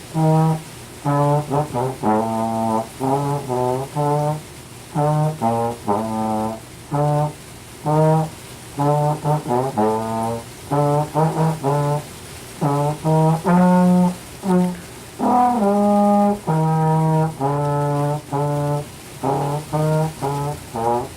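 Low brass instrument playing a practice part in its low register: short, separate notes in quick rhythmic groups, with a few longer held notes around the middle.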